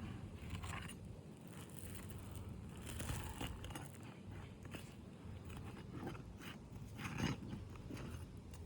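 Roofing shingles being lifted and pried loose: irregular small crackles and scrapes as the sealed shingles are worked free.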